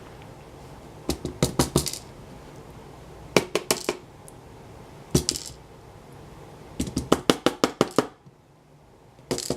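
Small metal lock parts clicking and clinking against each other and a hard surface as the picked lock is taken apart. The clicks come in several short bursts, with the longest quick run of about eight clicks near the end.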